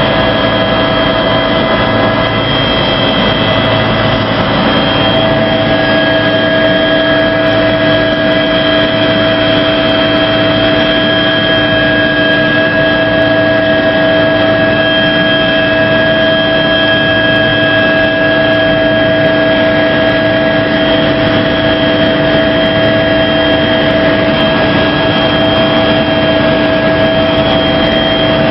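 Helicopter in flight heard from inside the cabin: a loud, steady drone of engine and rotor noise with several steady whining tones over it, one higher whine growing stronger about five seconds in.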